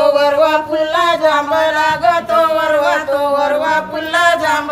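Singing of an Agri-Koli folk song in long, held, slightly wavering notes, with no break.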